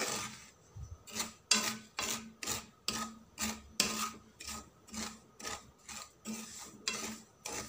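A wooden spoon scraping and stirring dry semolina and sesame seeds across the bottom of a pan as they roast, in regular rasping strokes about two a second. The semolina is nearly roasted, just turning light brown.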